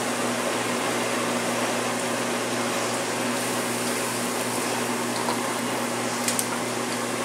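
Steady kitchen whir with a low hum, from the ventilation and the lit gas burner under a frying pan of soy milk heating up.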